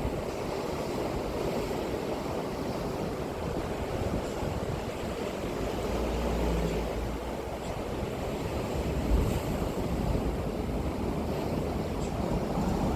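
Sea surf breaking and washing onto the beach in a steady rush, with wind buffeting the microphone now and then.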